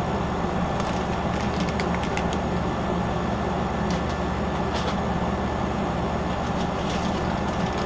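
Steady low mechanical hum with an even hiss, like a room air conditioner or fan running, with a few faint small clicks.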